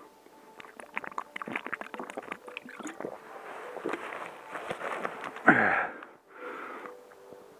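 A hiker's heavy breathing with crunching, crackling steps in snow. About five and a half seconds in comes a loud breathy exhale that falls in pitch.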